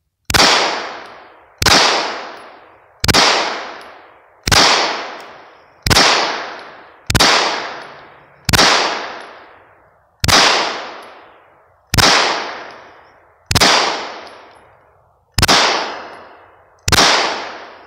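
Gen 4 Glock 17 9mm pistol fired twelve times in slow, steady succession, about one shot every one and a half seconds. Each report trails off in a long echo.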